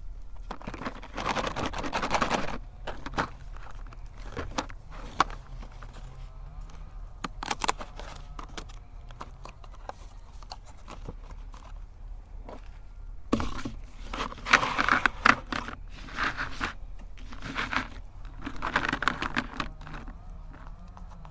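Crunchy cookies being crushed in a meat grinder, crackling and crunching in several bursts of a second or two, with clicks and scraping in between.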